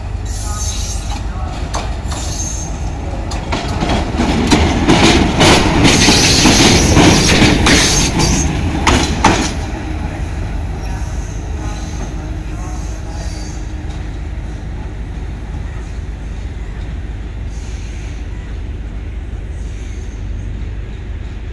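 Sri Lanka Railways M5 diesel locomotive running light past: the engine rumble swells as it approaches, rising to a loud clatter of wheels on the track as it goes by, then drops off suddenly after about nine seconds to a steady engine drone as it pulls away.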